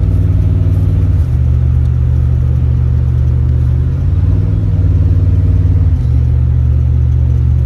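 Truck engine and road noise heard from inside the cab while driving: a loud, low, steady hum that rises in pitch twice and drops back each time.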